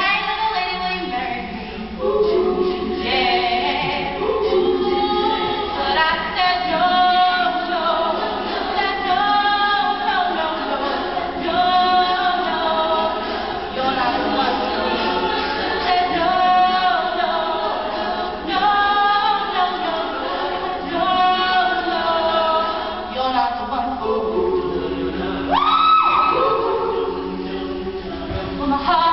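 Women's a cappella group singing in harmony, voices only with no instruments. Near the end one voice slides sharply upward in pitch.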